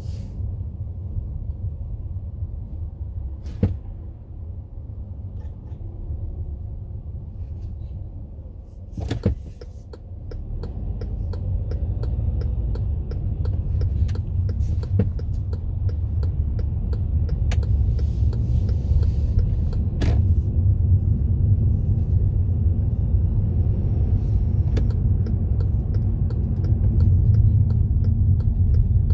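Car driving along a road: a steady low rumble of engine and tyres that grows louder about a third of the way in, with occasional knocks and light rattling ticks.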